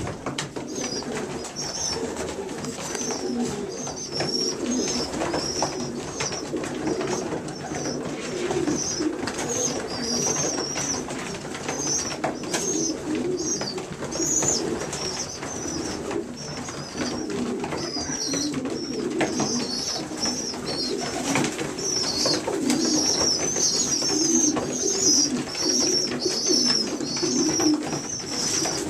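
Young racing pigeons about four weeks old squeaking continuously in short high peeps, over the steady low cooing of pigeons in the loft, with scattered light clicks.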